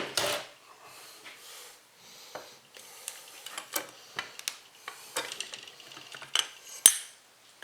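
Metal parts of a dismantled Johnson 70 outboard engine clinking and scraping as they are handled, with irregular light clicks and one sharper knock near the end.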